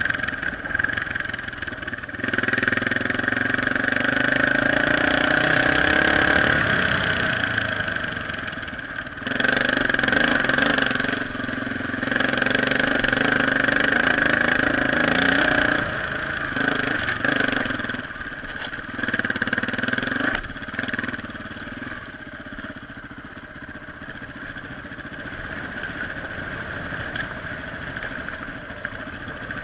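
Dirt bike engine being ridden, revving up and easing off in surges. The note climbs over the first few seconds, picks up again about nine seconds in, and settles to a lower, quieter run for the last third.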